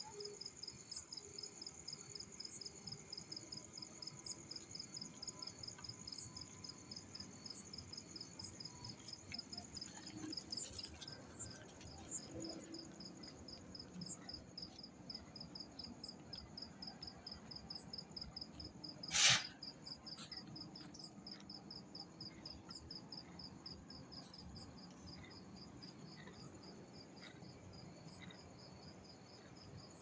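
Crickets chirping in a fast, even, continuous pulse, with one sharp knock about nineteen seconds in.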